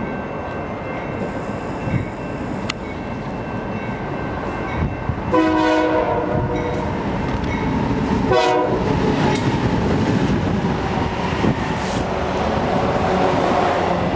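Freight train's diesel locomotive horn blowing twice, a longer blast about five seconds in and a short one about three seconds later. The lead BNSF diesel locomotives and their train then pass close by, with a loud, building rumble of engines and wheels on the rails.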